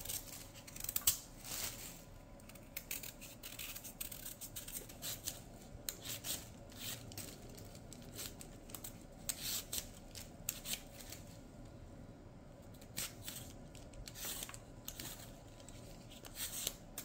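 Small knife paring the skin off a Japanese sweet potato: quiet, irregular short scrapes and clicks as the blade cuts through the peel.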